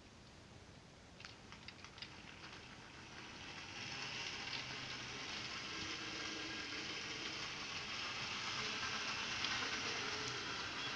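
Model train, a CC 72001 diesel locomotive pulling coaches, setting off on its track: a few light clicks, then a steady rolling rattle of wheels on rail that builds over about a second and keeps on.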